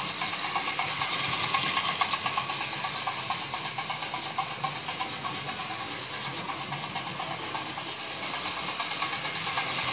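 Model railway locomotive 6201 Princess Elizabeth running steadily round the track, the piston unit in its tender making a fast, even chopping noise over the motor and the wheels on the rails.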